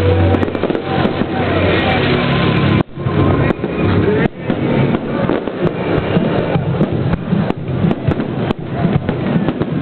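Fireworks going off in a festival display: many sharp bangs and crackles in quick succession over a continuous din, with two abrupt breaks near the three- and four-second marks.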